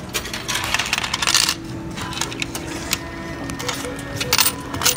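IBM self-checkout's coin dispenser dropping change into its coin cup: a clattering run of coins lasting about a second, then a few more clinks near the end as fingers scoop the coins out.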